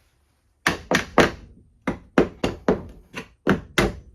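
A hammer knocking wood shims in under a fixture, about a dozen sharp blows: three quick ones, a short pause, then a faster run.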